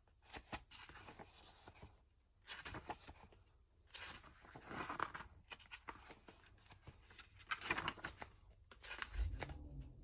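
Pages of a glossy booklet being turned and handled: faint, irregular paper rustles and flicks, with a couple of brief pauses.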